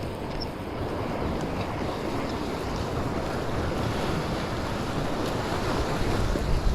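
Sea surf washing against rocks, with wind buffeting the microphone: a steady rushing noise that swells slightly near the end.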